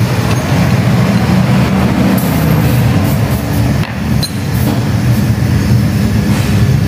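A motor running steadily: an unchanging low hum that fills the whole stretch.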